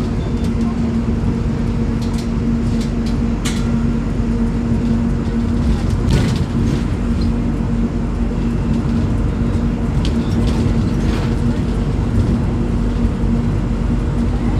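Volvo B9Salf articulated bus's diesel engine running at a steady, unchanging pitch, with a few short clicks and rattles.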